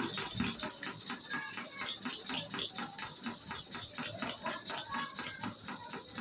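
Clipper blade rubbed back and forth on an oiled sharpening stone in rapid, even strokes, several a second, a scraping rasp with each pass. This is honing the cutting face of a hair-clipper blade, with kerosene as the oil.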